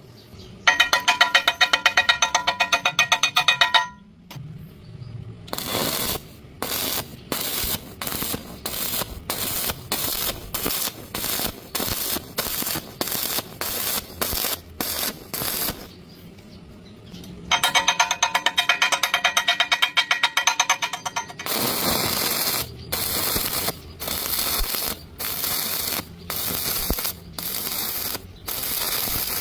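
Welding arc struck in many short bursts, each about half a second of crackling hiss, roughly one a second, as if tack or stitch welding along a crack. Twice the arc holds for several seconds with a steady buzzing tone.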